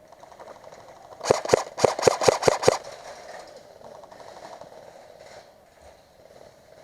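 Airsoft gun firing a quick string of about eight shots in under two seconds, sharp cracks.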